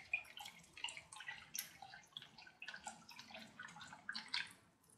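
Plant fertiliser solution being stirred by hand in a container: faint, irregular small clicks and light drips and splashes of water.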